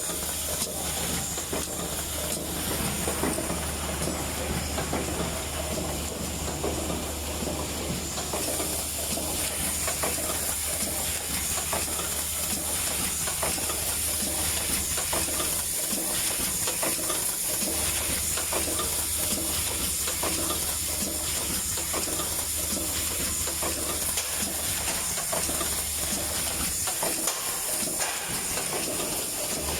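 Automatic pouch spout sealing machine running, with steady air hiss and a dense clatter of small clicks from its moving parts. A low hum underneath cuts out briefly twice, about halfway through and again near the end.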